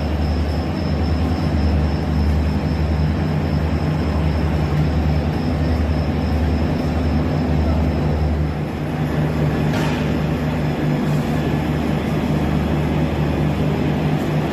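Indian Railways double-decker train running: a steady, loud rumble with a low hum, the deepest rumble easing about two-thirds of the way through.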